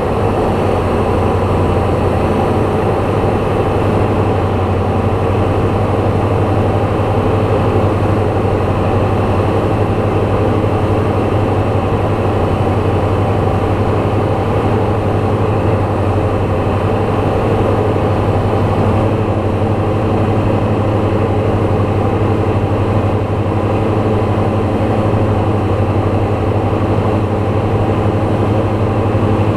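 Light aircraft's piston engine running with a steady, loud drone, its tone shifting slightly about nineteen seconds in.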